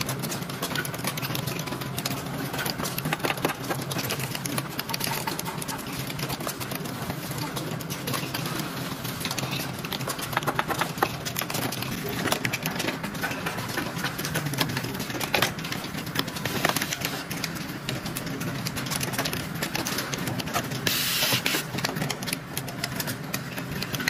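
Automated cable assembly line running: conveyor belts and pneumatic tooling make dense, irregular clicking and clattering over a steady hum, with a brief hiss of air near the end.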